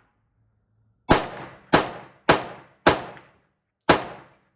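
Five gunshots fired in quick, uneven succession, the first four about half a second apart and the fifth after a slightly longer pause, each with a short echoing tail.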